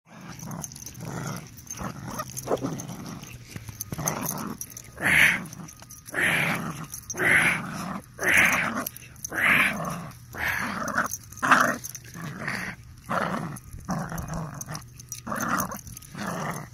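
Dog play-growling during rough play, in a string of short, harsh growls about one a second that grow louder a few seconds in.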